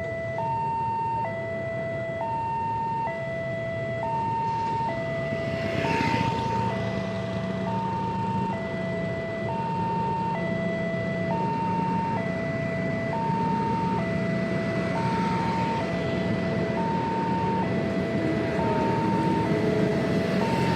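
Railway level-crossing warning alarm sounding its two alternating tones, switching about once a second, over steady road traffic. A vehicle whooshes past about six seconds in, and a low engine hum sets in soon after.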